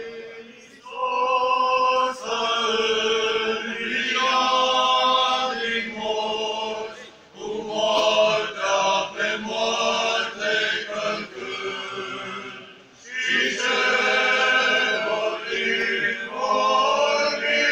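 Male clergy choir singing Orthodox liturgical chant, unaccompanied, in long phrases broken by brief pauses about seven and thirteen seconds in.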